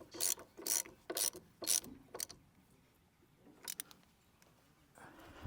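Ratchet wrench clicking in short bursts, about two a second, as a pressure washer pump's check valve is tightened; a pause, then two more strokes.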